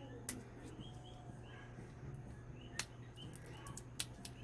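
Faint bird chirps in the background, with three sharp clicks from handling small objects at the table.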